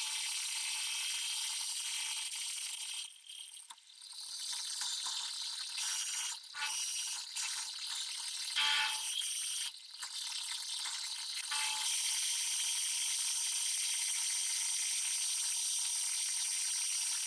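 Metal lathe turning a steel-45 shaft, its cutting and motor sound sped up several times so it comes out shrill and whining. The sound is steady at first, turns broken and uneven for several seconds in the middle, then runs steady again.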